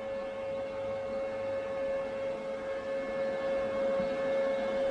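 A steady electrical whine: one constant mid-pitched tone with fainter overtones, holding level throughout, with a couple of faint handling clicks near the end.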